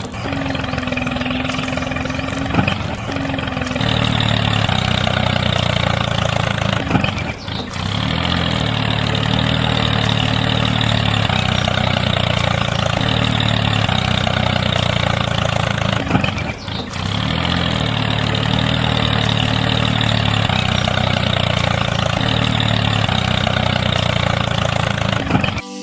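An engine running steadily, growing louder and fuller about four seconds in, with a few short breaks.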